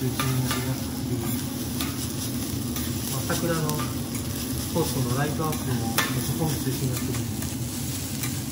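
Fried rice sizzling on a hot steel teppanyaki griddle while two metal spatulas scrape and chop through it. Sharp metal clacks of the spatulas on the plate come now and then, the loudest about six seconds in.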